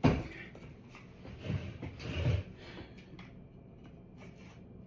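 Handling noise from a homemade wooden piece: a sharp knock, then two short bouts of rubbing and clatter, and a few faint clicks.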